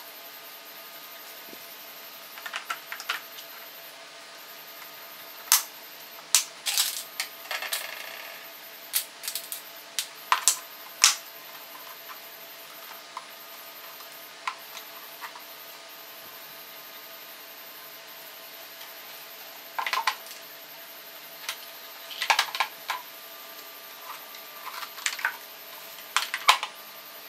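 Irregular sharp clicks and knocks of hard plastic as a car's AC blower and evaporator housing is handled and taken apart on a tile floor, coming in scattered clusters.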